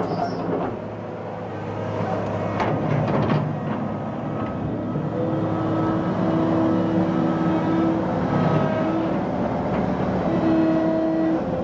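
Komatsu PC220LC-5 excavator running, a steady diesel hum with whining tones that shift in pitch every second or so.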